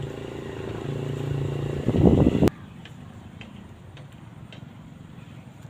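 A motor engine running steadily and growing louder, with a loud rough burst about two seconds in, then cutting off abruptly. After the cut only faint outdoor background remains, with a few small clicks.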